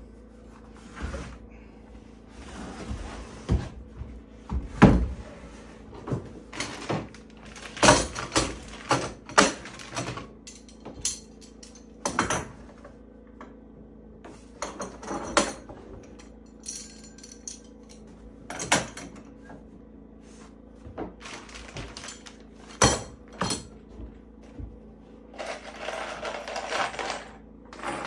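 Wooden cabinet door and cedar boards being handled and set down on a wooden counter: irregular knocks and clunks of wood on wood, one every second or so. Near the end a few seconds of rasping as the door is hand-sanded with a sanding sponge.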